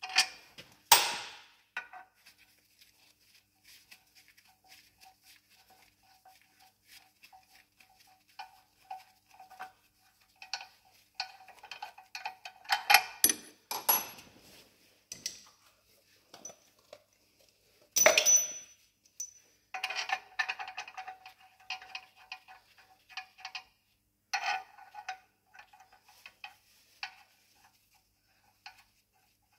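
Hand ratchet clicking in short runs with light metal clinks, as the bolts of a truck clutch pressure plate are run in and tightened onto the flywheel. A few louder metal clanks stand out, about a second in, around the middle and about two-thirds through.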